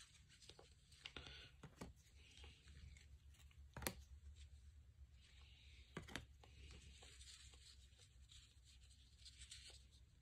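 Near silence with faint rustling and a few soft clicks of trading cards being handled and sorted, the sharpest clicks about four and six seconds in.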